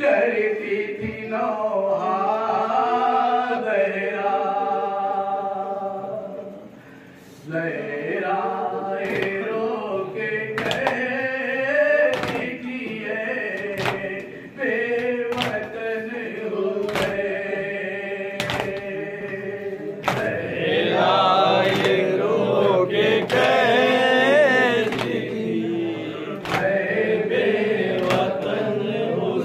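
A man's voice chanting a Shia noha (Muharram lament) through a microphone. From about nine seconds in, sharp slaps come evenly, a little more than one a second: the mourners' matam, beating their chests in time with the lament.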